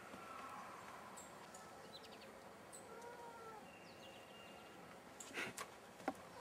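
Faint outdoor ambience with a few short, high bird chirps. There is a brief rustle about five seconds in and a click near the end.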